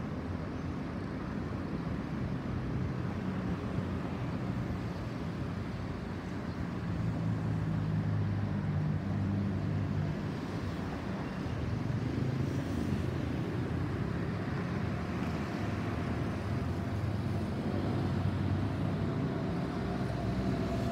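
Airbus A320-216's CFM56 jet engines climbing out after takeoff, heard at a distance as a low, steady rumble. It swells slightly about seven seconds in.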